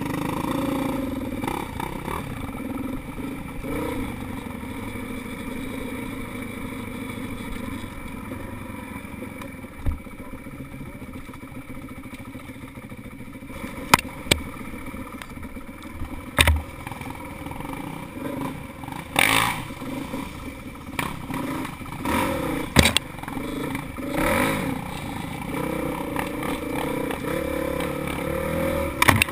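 Single-cylinder four-stroke dirt bike engine, a Honda CRF450X, running as it rides a rough trail, with several sharp knocks and rattles from the bike over bumps in the second half.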